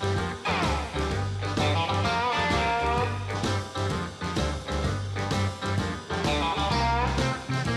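Swing-style background music with electric guitar over a steady bass line.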